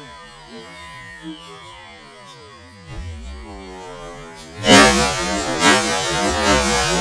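Barrett M82A1 semi-automatic .50 BMG rifle firing: a sudden loud blast about two-thirds of the way in and another about a second later, followed by dense lingering noise. Before the shots, a low drone with a wavering pitch.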